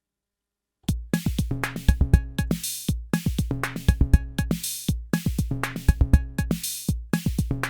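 Arturia DrumBrute Impact analog drum machine starting a looping beat about a second in: deep kick drum hits, hissy hi-hat and cymbal hits and short pitched percussion notes repeating in a steady pattern.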